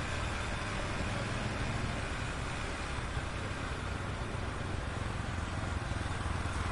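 Heavy street traffic heard from a moving bicycle taxi: a steady rumble of car and motorcycle engines with general road noise, no single event standing out.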